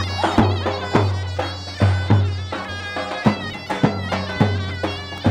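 Turkish folk wedding music: a shrill reed pipe plays a fast, ornamented melody over heavy drum strokes, about two a second.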